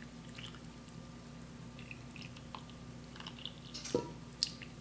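Sauerkraut liquid poured in a thin stream from a bowl onto pasta rolls in a casserole dish: faint wet dripping and splashing, with a light knock about four seconds in.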